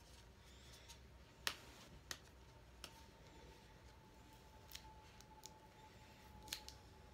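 Mostly near silence, broken by a handful of short, sharp clicks and taps spread through it: a small cardboard makeup box and its packaging being handled and opened.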